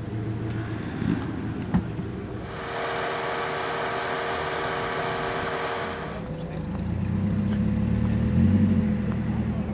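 Off-road 4x4 engines running, the sound changing abruptly from shot to shot: a steady hiss starts suddenly about two seconds in and cuts off about six seconds in, then a deep engine note grows louder toward the end.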